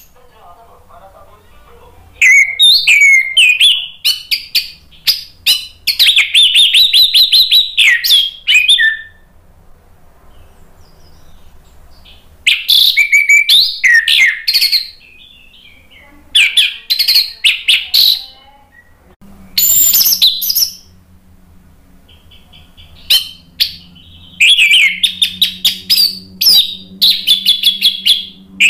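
Caged orange-headed thrush in full, loud song. It sings fast bouts of varied, sliding whistled phrases, each a second or a few seconds long, with short pauses between them.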